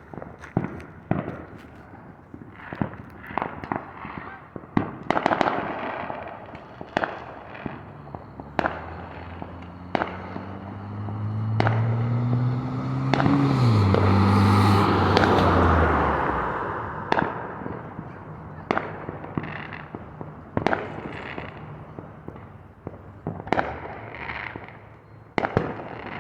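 Fireworks going off all around: scattered sharp bangs and pops at irregular intervals. About halfway through, a loud humming rush swells up and fades away, its pitch climbing and then dropping sharply.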